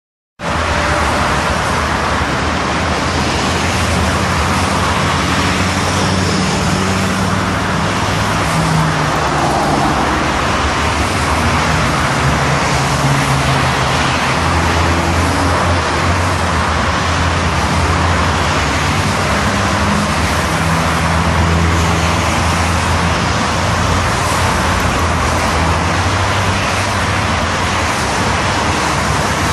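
Steady road traffic noise from cars on a busy multi-lane road, with a low engine hum that rises and falls as vehicles pass.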